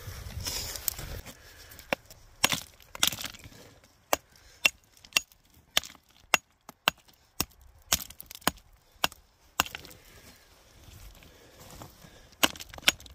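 Geologist's rock hammer striking sulfide-rich rock: sharp, separate blows, a few at first, then a steady run of about two strikes a second for several seconds, and two more near the end, as a large chunk of mineralized rock is chipped and pried loose.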